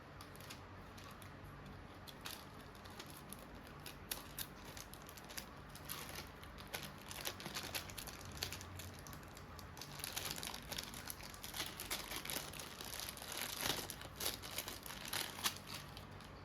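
Packaging crinkling as it is handled, with irregular crisp crackles that grow busier and louder about two-thirds of the way in.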